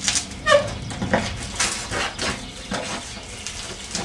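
Irregular clatter of knocks and clicks with a short squeak about half a second in, from a small child's BMX bike being ridden by an adult over concrete.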